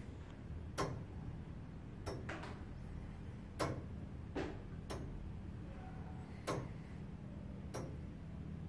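The 1829 J. Moore & Sons tower clock movement running: its escapement gives sharp, slightly ringing metallic ticks about every second or so, not quite evenly spaced, over a low steady hum.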